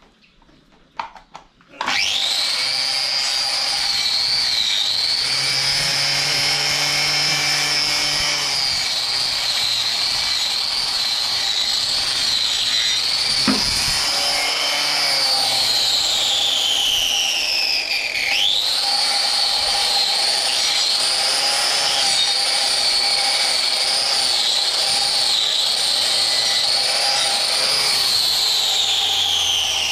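Electric angle grinder being worked on a cow's hoof during hoof trimming. It starts up about two seconds in and runs with a steady high whine. The pitch sags as the tool is loaded against the hoof, about halfway through, then picks back up, and sags once more near the end.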